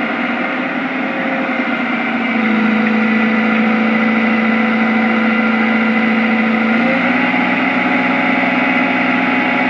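Heavy diesel engines of a Komatsu PC128US excavator and a small dump truck running steadily. About two seconds in the engine note grows louder and deeper as one engine takes on load, then shifts to a slightly higher pitch near seven seconds, while the excavator works to pull back a dump truck that has slid toward the edge of the slope.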